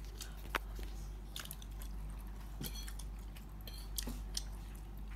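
A person chewing and biting pizza, with scattered small crunches and clicks.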